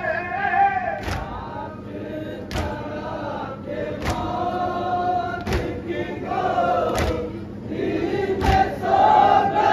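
A nauha, a Shia lament, chanted by a male reciter with a group of mourners singing along. Sharp slaps of chest-beating (matam) keep the beat, about one every one and a half seconds.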